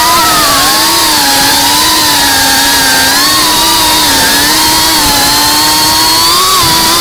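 Brushless motors and ducted propellers of a GEPRC CineLog35 cinewhoop FPV drone whining in flight, the pitch wavering up and down with throttle changes over a steady hiss.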